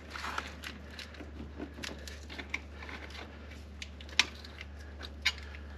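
Hand tools clicking and clinking on a motorcycle's rear axle and chain adjuster while it is loosened to give the new chain slack: a scatter of light metallic clicks, with two sharper ones about four and five seconds in, over a steady low hum.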